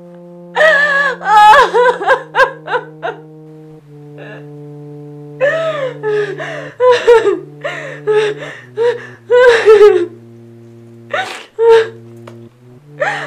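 A woman crying, with short broken gasps and whimpering wails, over sustained background music notes.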